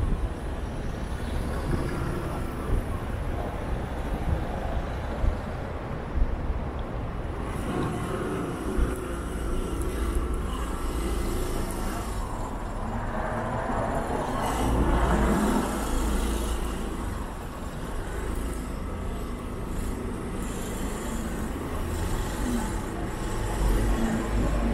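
City street traffic: cars and trucks running past on the road with a steady low rumble, one vehicle passing louder a little past the middle.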